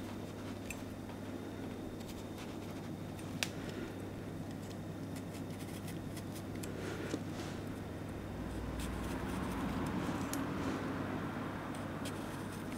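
Japanese kitchen knife carving a hand-held piece of carrot into a plum-blossom shape: faint scraping and shaving of the blade through the carrot with small clicks, two of them sharper, over a steady low hum.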